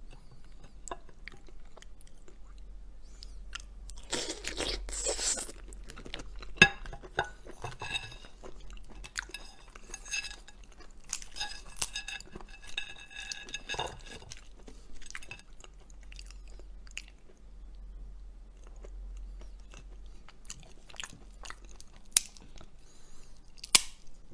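Close-up chewing and crunching as hard crab shell is cracked open and eaten, with sharp cracks and snaps scattered throughout and a longer crackling break about four seconds in.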